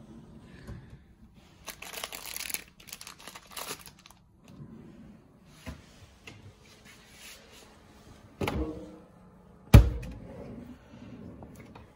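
A wooden dresser drawer and cabinet door being handled. There is a stretch of rustling from the drawer's plastic-wrapped contents about two to four seconds in, then two wooden knocks from the cabinet door. The second knock, just before ten seconds in, is the loudest.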